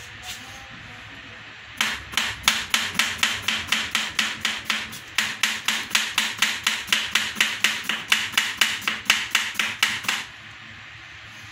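Kitchen knife quickly slicing a cucumber on a plastic cutting board: rapid chops at about four a second. They start about two seconds in, break off briefly near the middle, and stop about a second before the end.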